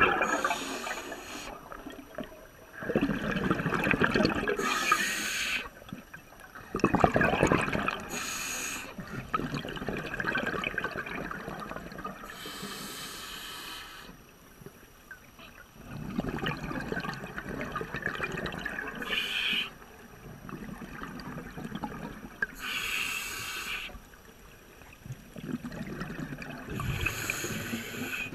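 Scuba diver breathing through a regulator underwater: a short hiss on each inhale and a rush of bubbles on each exhale, repeating every few seconds.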